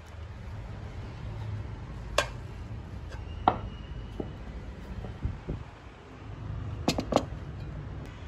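Rice being served from a rice cooker pot onto a ceramic plate: a few scattered knocks and clinks of the serving spoon against the plate and pot, one with a short ring, over a low steady hum.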